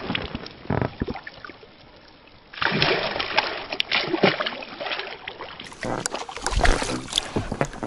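A hooked pike thrashing at the surface beside an inflatable boat, with repeated irregular water splashes; a short lull about a second in, then heavy splashing again.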